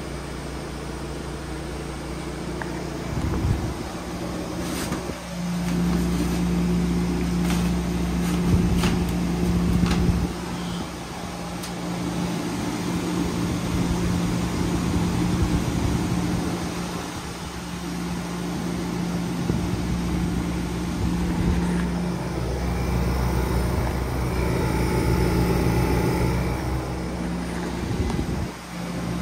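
Vintage room air conditioner running: a steady electric hum under a rush of air, the hum growing stronger about five seconds in, with a few sharp clicks in the first ten seconds.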